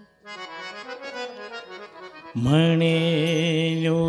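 Harmonium playing a soft melodic phrase of stepping notes. About two and a half seconds in, a male singer comes in over it, holding one long note on the word "म्हणे" of a Marathi Warkari bhajan.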